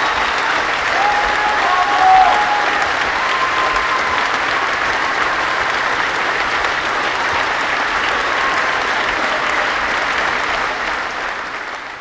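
A large crowd clapping steadily, with a few cheers heard over it in the first few seconds; the applause dies away over the last two seconds.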